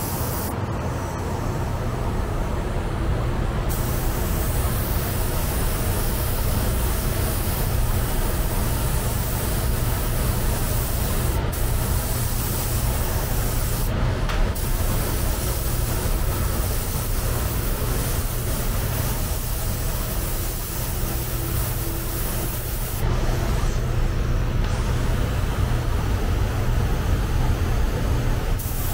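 Sanding of body filler on a car panel: a steady, loud hiss of the sanding, with the high part of the hiss stopping briefly about a second in, twice near the middle and again late. A low hum runs beneath it throughout.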